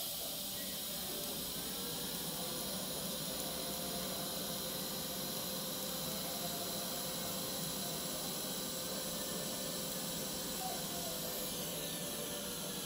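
TIG welding arc burning steadily: an even hiss with a faint high steady whine.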